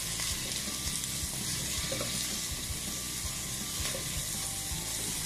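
Chopped onions, with green chilli, ginger and garlic, sizzling steadily in hot oil in a non-stick pan, stirred with a wooden spatula. They are being sautéed in oil without water to soften them.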